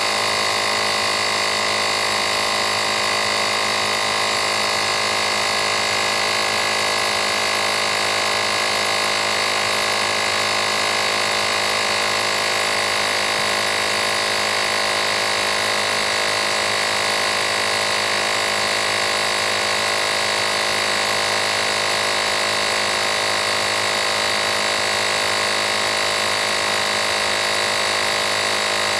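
Fanttik X8 APEX cordless tire inflator's compressor running steadily: a constant, even motor hum made of many fixed tones, with no change in pitch or level.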